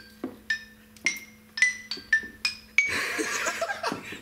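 Xylophone played with mallets: a slow run of single ringing notes, about two or three a second. Near the end the notes stop and a louder, dense rush of noise takes over.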